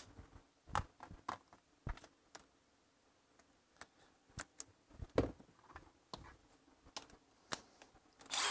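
Gloved hands handling tools and hardware: scattered light clicks, knocks and small metallic clinks, with a short rustle near the end.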